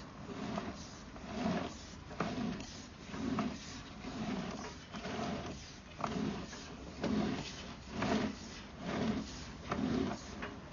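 Sewer inspection camera's push cable being fed or pulled through the line, a rhythmic scrape and clack about once a second.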